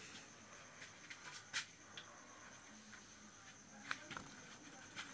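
Faint pen writing on a notebook page: a few light taps and scratches, the clearest one just before the end, over quiet room hiss.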